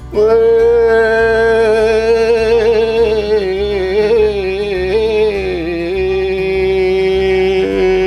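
A man's voice holding one long, wavering sung note, which drops a little in pitch about five and a half seconds in and is held again, over a low steady hum.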